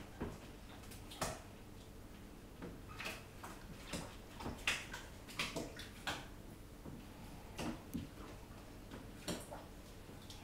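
A kitten squirming on a lap: faint, irregular soft clicks and rustles of its body against the trousers, about a dozen scattered through.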